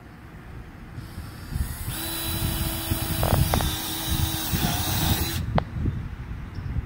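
Cordless drill running steadily for about three and a half seconds, driving a screw-in snap base into a travel trailer's trim panel, then stopping with a sharp click.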